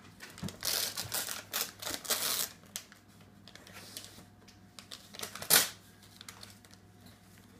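Wrapping paper being torn and crinkled by a toddler's hands: a run of short rips and crinkles over the first couple of seconds, then one sharp, loud rip about five and a half seconds in.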